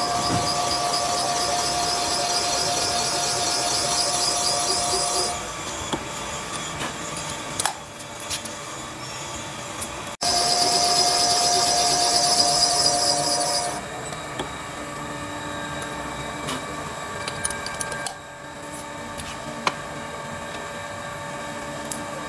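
Valve-seat cutting machine's spindle cutting a valve seat bore in an Isuzu 4BD1 diesel cylinder head: a steady whine with a fast, fine chatter from the cutter, in two spells, the first stopping about five seconds in and the second lasting about four seconds near the middle. Between and after the spells, a quieter steady machine hum with a few clicks.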